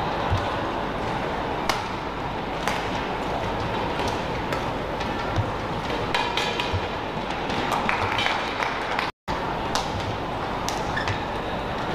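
Badminton rally: rackets strike the shuttlecock in sharp cracks roughly a second apart, and shoes squeak on the court, over the steady hum of the hall. The sound cuts out for an instant about nine seconds in.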